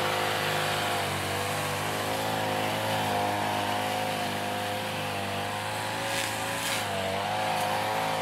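Petrol string trimmer's small engine running steadily at working speed, its pitch wavering slightly.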